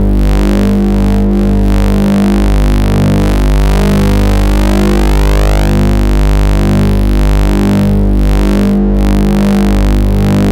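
Electronic test-signal tones from a computer sound card, the same audio that draws the looping squiggles on the screen: a dense, buzzy, synthesizer-like drone with a sweep of tones rising in pitch over several seconds that breaks off suddenly about halfway through.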